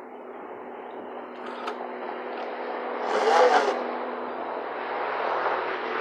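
Bicycle rigged to make a motor-like noise as it is ridden. It makes a steady buzzing drone that grows louder, with a brief louder swell about three seconds in.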